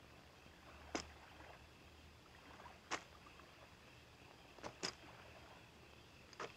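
Faint, slow footsteps over near silence: single sharp steps spaced roughly two seconds apart, with two close together near the middle.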